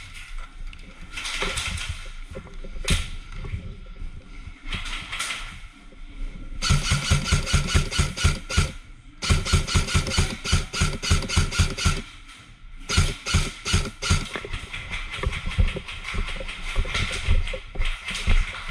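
Airsoft gun firing long runs of rapid shots: three strings of steady, even shots from about a third of the way in, with short pauses between them. Before that there is only rustling and scattered clicks.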